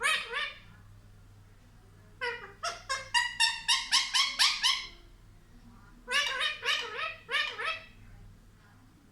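Pet parrot giving rapid runs of short, repeated, squawk-like calls, about four a second, in bursts with short pauses between.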